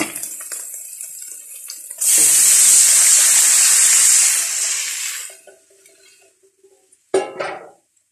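Pork, garlic and onion sizzling in a hot wok; about two seconds in, cooked mung beans and their broth are poured in with a loud rush of pouring liquid and sizzle that dies away some three seconds later. A brief metallic clatter follows near the end.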